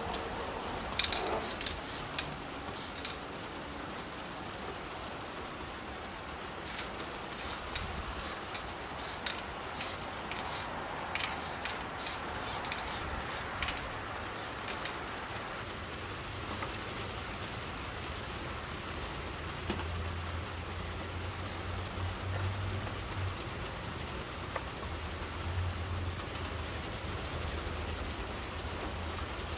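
MTN 94 aerosol spray paint can sprayed in many short quick bursts through the first half, then stopping about halfway through. A steady hiss of rain runs underneath.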